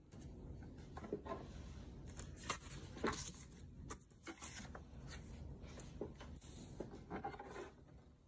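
Paper notecards being handled and slid over a bento box, light rustles and soft taps coming and going over a low steady room hum.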